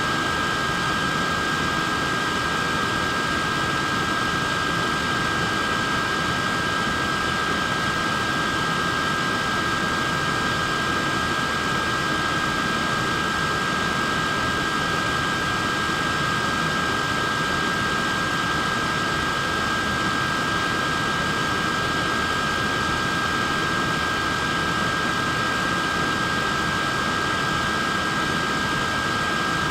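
Wearable neck fan running steadily: an even rush of air with a thin, high two-tone motor whine that holds constant throughout.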